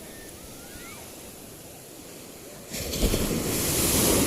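Ocean surf washing on the shore, then a wave breaking loudly about three seconds in, its wash still swelling near the end.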